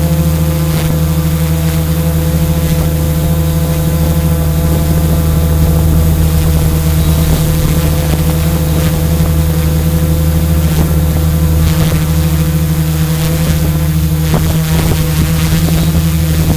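XAircraft 650 Pro multirotor's electric motors and propellers, heard from its own on-board camera while it hovers: a loud, steady hum with a strong low tone that hardly changes in pitch.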